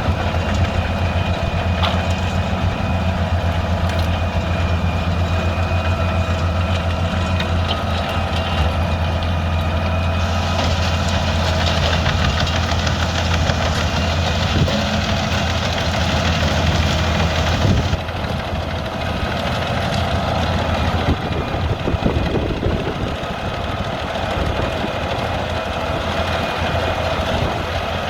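Albach 700 hp biomass wood chipper running, a heavy engine with a steady low drone. About ten seconds in a higher hiss joins it, and both change about eighteen seconds in, the drone becoming weaker and rougher.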